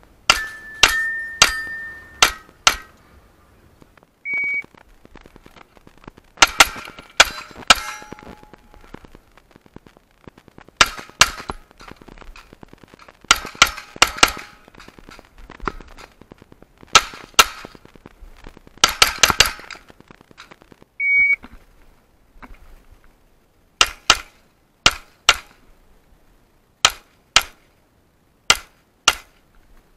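9mm pistol shots from a ported S&W M&P 9 with a red-dot sight, fired in quick pairs and short strings with pauses of one to a few seconds between groups as the shooter moves between targets.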